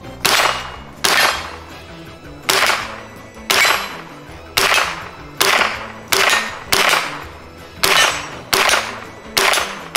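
Smith & Wesson AR-platform semi-automatic, blowback .22 Long Rifle rifle firing eleven shots in steady semi-auto succession, about one a second or a little faster. Each shot is a sharp crack with a short ringing tail.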